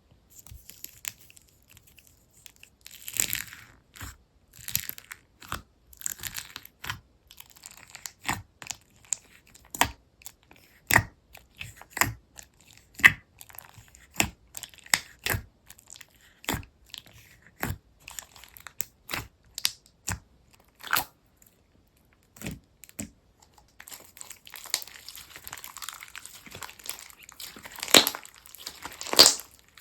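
Slime being pressed, stretched and poked by hand, giving a string of sharp pops and clicks, with a dense run of crackling near the end.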